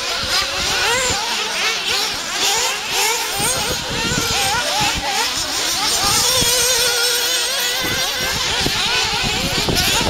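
Several radio-controlled 1/8-scale off-road buggies racing, their small nitro engines revving up and down in overlapping, wavering high-pitched whines.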